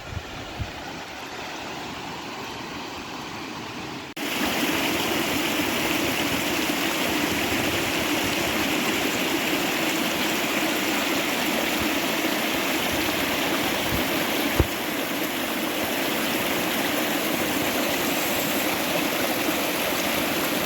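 Steady rushing water of a mountain stream or falls. It becomes suddenly louder and fuller about four seconds in, then runs on evenly.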